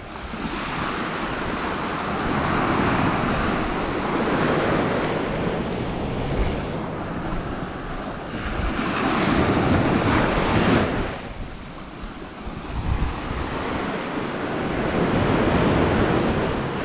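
Small sea waves breaking and washing up a sandy beach, their rush rising and falling in surges and loudest a little past the middle, with wind buffeting the microphone.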